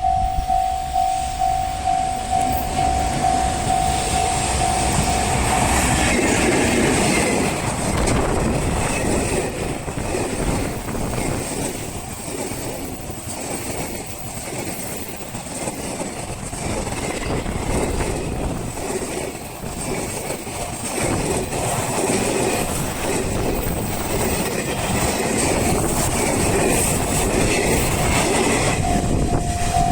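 Level-crossing warning bell ringing in a steady pulse, then a train running through the crossing for over twenty seconds with loud wheel-on-rail noise that covers the bell. The bell is heard again near the end.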